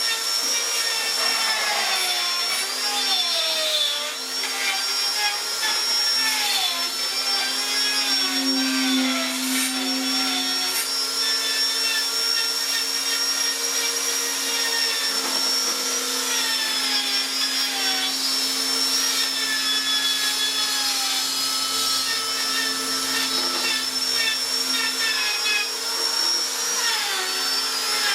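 Handheld electric power tool motor running continuously on wood, its whine repeatedly dipping and recovering as it is pressed into the work.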